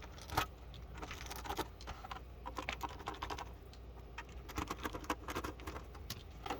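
Screwdriver taking the screws out of the back of a CCTV DVR case: a run of small, irregular clicks and scrapes, with one louder click near the start.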